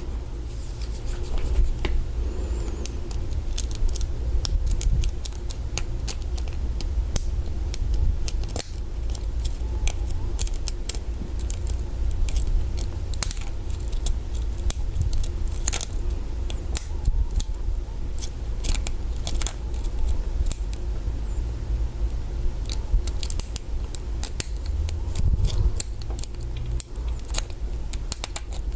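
Small, irregular metallic clicks and scrapes of a hook pick and tension wrench working the pin stack inside a Master Lock 140 padlock's keyway, over a steady low hum.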